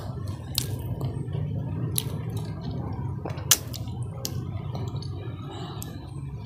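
Close-up wet chewing and lip-smacking of a mouthful of grilled fish and rice, with scattered sharp mouth clicks over a low steady hum; one click about three and a half seconds in is the loudest.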